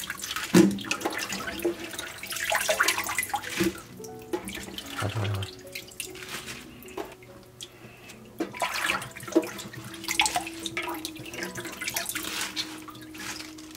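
Water splashing and dripping in irregular bursts as handfuls of washed bok choy are lifted out of a sink of water and dropped into a plastic strainer to drain.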